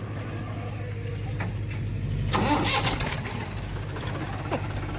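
Heavy diesel engine running steadily at a low, even pitch, with a short louder burst of rattling noise about two and a half seconds in.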